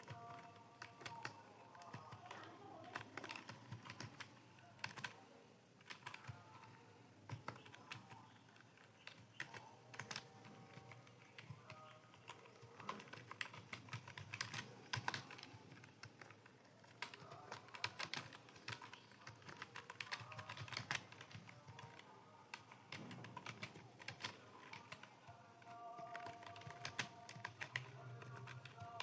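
Fingers typing on a computer keyboard: quick, irregular keystroke clicks in runs with short pauses, fairly faint.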